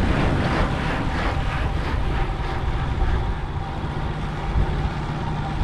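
Wind buffeting the microphone with road noise while riding a road bike at speed, a steady low rush without a break.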